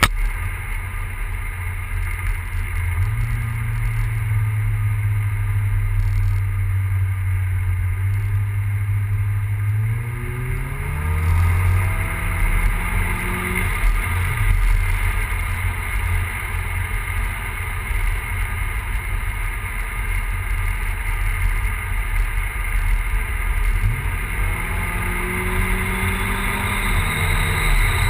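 Turbocharged, E85-fuelled Volvo 940 engine running with a misfire of unknown cause. It steps up slightly a few seconds in, then is revved up twice, each time held for a few seconds before dropping back.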